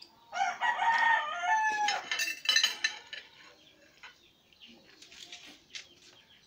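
A rooster crows once, a single long call of about a second and a half. Right after it come several sharp clinks of a metal fork and knife against a plate.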